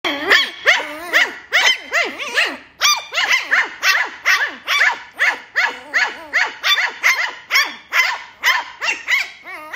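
Lhasa apso puppies yapping in short, high-pitched barks, about three a second without a break, as they play-fight.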